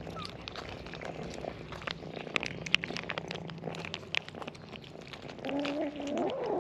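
Stray kittens eating: a quick run of sharp little crunches and clicks, then a cat meows near the end.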